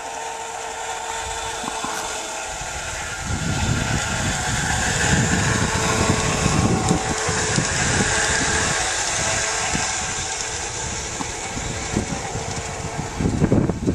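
Garden-railway model of a Burlington Zephyr streamliner running on outdoor track, powered by a single electric motor with the rear motor removed: a steady rolling hiss of wheels and gearing that grows louder through the middle as the train passes close, then eases off. Irregular low rumbles and thuds join in from about three seconds in.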